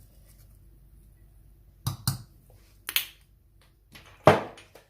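A spoon knocking and clinking against a cooking pot while seeds are added: a few short, sharp hits, the loudest a little over four seconds in.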